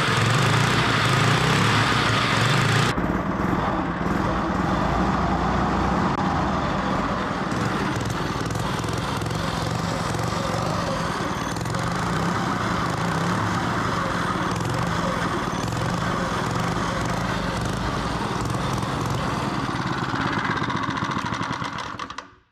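Small single-cylinder four-stroke engine, a Power Fist 79cc OHV, running steadily in a snowmobile chassis. The sound stops just before the end.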